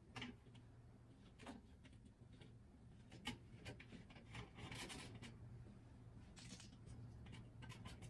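Near silence: faint scraping and a few light clicks of gloved hands and a tool working at a gas furnace's burner assembly, around the flame sensor and hot surface igniter, over a low steady hum.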